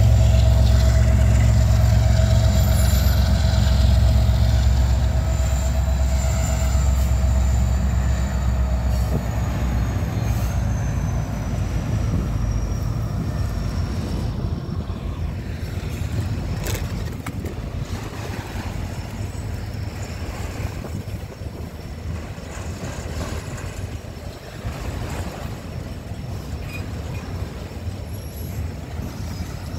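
Freight train passing close by: a Canadian Pacific diesel locomotive's engine running heavily and fading over the first several seconds. After it, autorack freight cars roll past, their steel wheels clattering on the rails with occasional clicks, slowly getting quieter.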